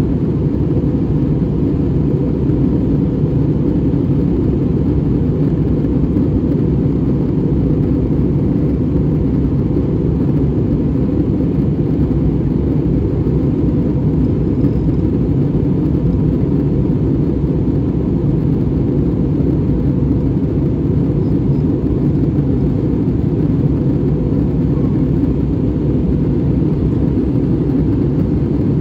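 Steady low rumble of an Airbus A320-200 in flight, heard inside the cabin: engine and airflow noise that holds even throughout.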